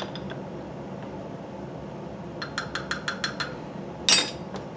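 A plastic measuring spoon clicking against a small glass jar while a vinaigrette is mixed: a quick run of about eight light clinks in the middle. Near the end comes one louder clatter as the spoon is put down in a plastic tub among metal spoons.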